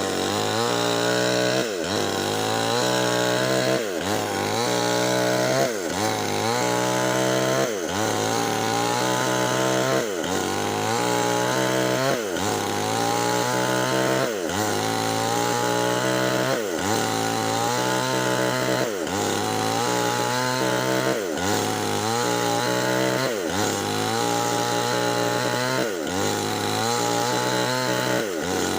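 Gasoline chainsaw with a long 25-inch bar running under load as it rips lengthwise through a Medang log. The engine pitch dips and recovers in a regular cycle, about every two seconds.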